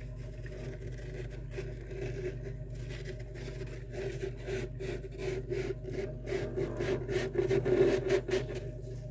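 A bare hand scraping and scooping soft freezer frost, making rough, crunchy rubbing strokes that grow louder and are loudest near the end. A steady low hum runs underneath.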